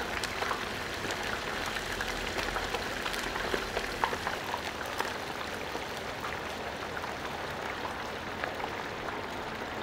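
Hot frying oil at about 375°F in a turkey fryer pot bubbling and sizzling as a whole turkey is lowered into it: a steady crackling hiss with scattered small pops.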